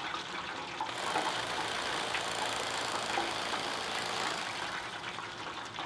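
Electric fillet knife running as its blades saw through a deep-fried pork tenderloin. It starts about a second in and then runs steadily.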